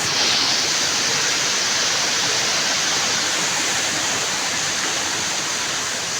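Waterfall: falling water pouring with a steady, dense rush.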